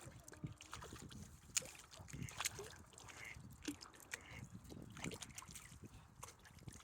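A hooked fish being played and reeled in at the water's edge: irregular light splashing mixed with scattered clicks and knocks of rod and reel handling.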